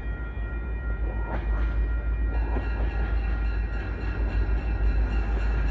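An approaching MBTA commuter rail train, heard before it comes into view, getting slowly louder over a constant deep rumble, with several steady high tones coming in about two seconds in.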